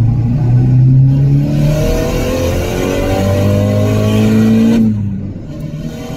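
Turbocharged Audi engine swapped into a Mazda RX-8, heard from inside the cabin, pulling under acceleration with its note rising steadily. Just under five seconds in, the note drops and quietens suddenly.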